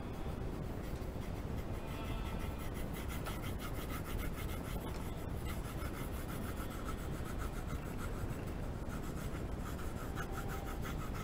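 Blue colored pencil scratching back and forth on drawing paper in many quick, even strokes, shading a broad area.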